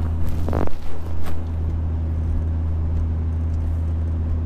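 Inside the cabin of a 1996 Volvo 850 turbocharged five-cylinder wagon cruising: a steady, loud low exhaust drone, with a few knocks and rattles from the car in the first second and a half.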